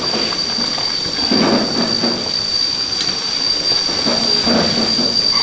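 Pot of water at a rolling boil over a wood fire, bubbling and rumbling steadily, swelling twice as a whole chicken is turned in it with chopsticks. A steady high whine runs underneath.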